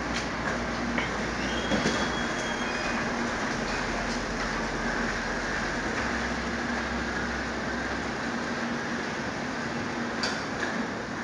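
Steady machinery noise: a constant low hum over an even rushing sound, with a few faint clicks.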